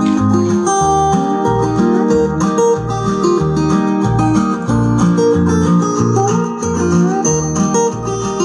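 Music with a steady bass beat played through a pair of two-way bookshelf speakers, each with a woofer and a dome tweeter, driven by an LM1875 gainclone amplifier kit running two chips in parallel per channel.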